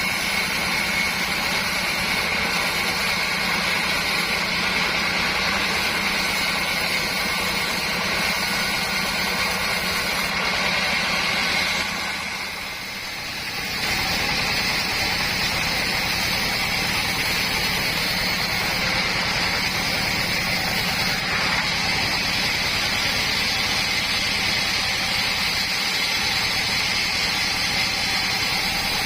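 Sawmill machinery running steadily while sawing mahogany into boards, a loud continuous mechanical drone with a high steady tone. It dips briefly about halfway through, then carries on as before.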